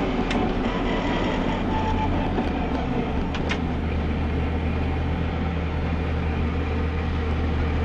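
Rally car's engine running at low, steady revs, heard from inside the cabin, with the engine note settling to a new steady pitch about two and a half seconds in. A couple of faint ticks sound near the start and around the middle.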